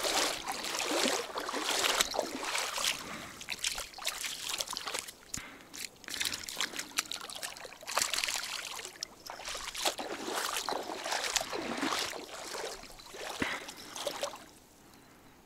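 Water splashing and sloshing in irregular bursts, as a hooked fish thrashes at the surface while being brought in; the splashing dies down near the end.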